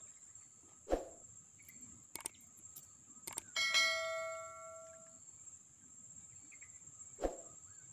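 A click followed by a bell ding from an edited-in subscribe-button animation, about three and a half seconds in, the ding ringing and fading over a second or so, over a steady high insect drone. Two dull thumps, about a second in and near the end.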